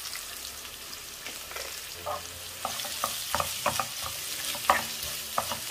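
Sliced onions sizzling in hot coconut oil in a nonstick frying pan, just added and being sautéed. A wooden spatula stirs them, scraping and knocking against the pan several times from about two seconds in.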